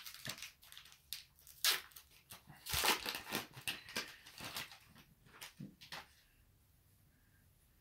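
Foil wrapper of a 2019 Topps Series 1 baseball card pack being torn open and crinkled by hand, a run of sharp rips and crackles that is loudest about three seconds in and stops about six seconds in.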